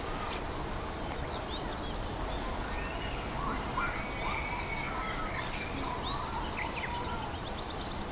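Several songbirds chirping and whistling in the surrounding trees, short gliding calls and trills coming one after another, over a steady low outdoor background noise.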